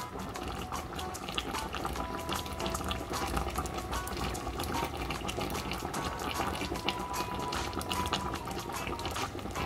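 Thick tomato-based chicken stew simmering in a pot, its sauce bubbling with a steady stream of small pops.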